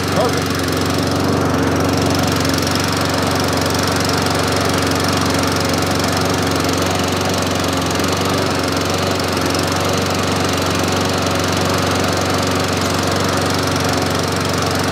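Toro front-wheel-drive walk-behind mower's Tecumseh single-cylinder engine running steadily at a constant speed, on its test run after refurbishment.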